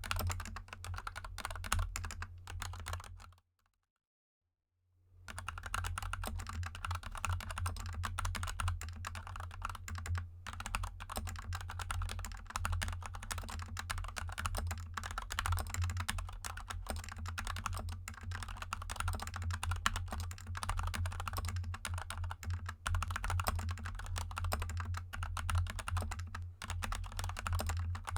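Fast continuous typing on a GK64 mechanical keyboard with lubed Gateron Yellow linear switches and XDA keycaps, over a steady low hum. The typing cuts to silence for about two seconds a few seconds in, then resumes.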